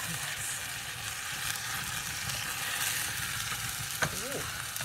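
Onions sizzling in a hot pot while a spoon stirs them, with flames burning in the pan as they caramelize. About four seconds in, a single sharp knock.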